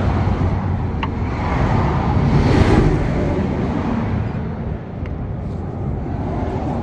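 Road traffic: a vehicle passing close by with a rushing tyre-and-engine noise that swells to a peak about halfway through, then fades.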